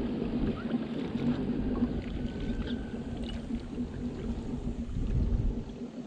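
Kayak underway on the water: a steady low hum from its drive over a rough low rumble of water and wind.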